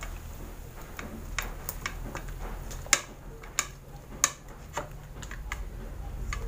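Hands mixing raw pork spare ribs in marinade in a metal pan: irregular clicks and taps of bone and fingers against the pan, the sharpest about three and four seconds in, over a low steady hum.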